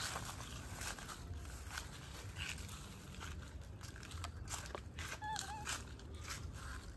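Irregular crackling and clicking of twigs, bark and leaves as young monkeys climb and grab at a small tree, over a low rumble. A short wavering squeak comes a little after five seconds.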